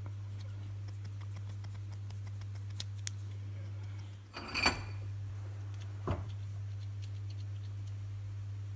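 Small metal parts clinking as they are handled, one sharp clink with a brief metallic ring about halfway through and a softer knock a moment later, over a steady low hum.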